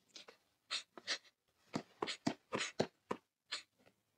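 A girl crying quietly: a string of short, irregular sniffs and breathy catches of breath.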